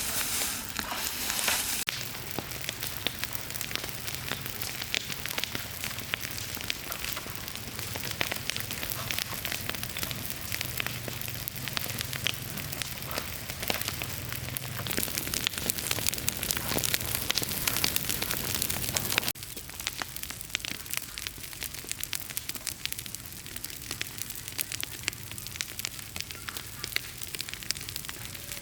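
Fire crackling, with a dense stream of sharp pops and snaps. The sound shifts abruptly twice, about two seconds in and again past the middle.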